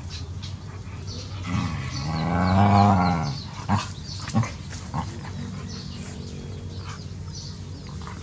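A dog's long, low whine that rises and then falls in pitch, about a second and a half in, followed by two short sharp yelps.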